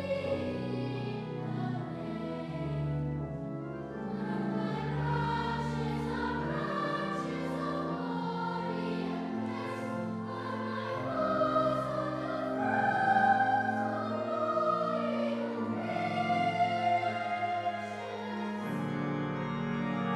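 A choir singing a slow piece in parts, with held chords that change every second or so.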